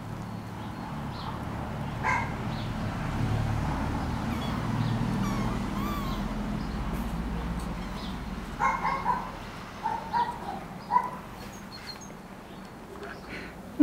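Young kittens mewing: short, high calls, one about two seconds in and a quick run of several from about two-thirds of the way through, over a low rumble in the middle stretch.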